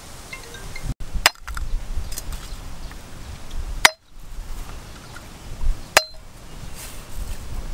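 A steel cleaver blade giving three sharp metallic clinks about two and a half seconds apart, each with a brief ring, over a low outdoor rumble.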